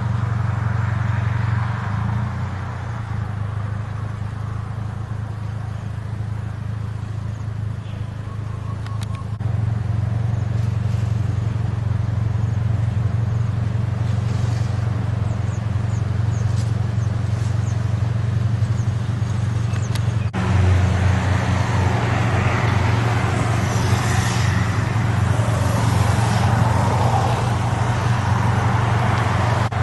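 A steady low engine rumble, like a vehicle running. It shifts abruptly about 9 s in and again about 20 s in, getting louder with more noise above the rumble after the second change.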